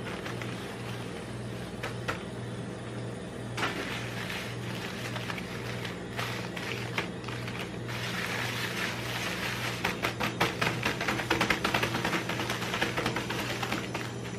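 Crinkling and rustling of plastic snack wrappers as gloved hands handle and spread packets of Corneo corn crackers across a metal pan. The crackling grows denser and louder in the second half, over a steady low hum.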